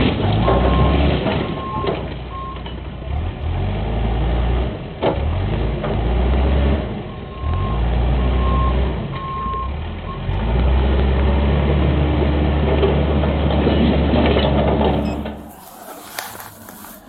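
Backhoe's diesel engine running and revving up and down, with its backup alarm beeping at times and a single knock about five seconds in. Near the end the sound cuts to much quieter audio.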